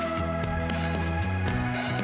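Background music with a steady beat and sustained chords; the chord shifts about a second and a half in.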